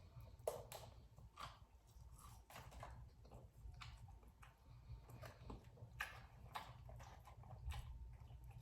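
Faint close-up eating sounds: soft, wet mouth clicks and smacks of chewing a taco, scattered irregularly over a low steady hum.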